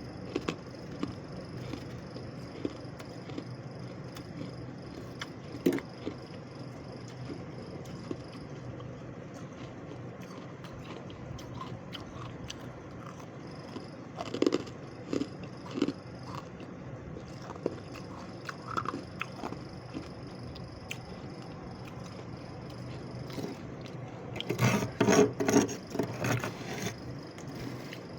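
Freezer frost crunching: scattered crisp crackles and crunches, then a dense, louder run of crunching near the end.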